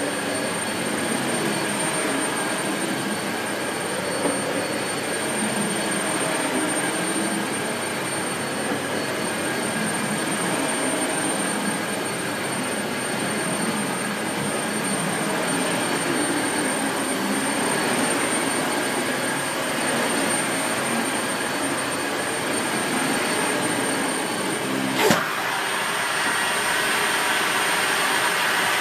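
Dyson Light Ball Multi Floor bagless upright vacuum cleaner running steadily with a high whine, and one sharp knock near the end.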